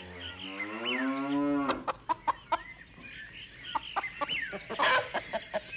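Farmyard sound effects: a cow moos in one long rising call that ends about two seconds in, with small birds chirping. Then hens cluck in quick short notes, with one louder burst near the end.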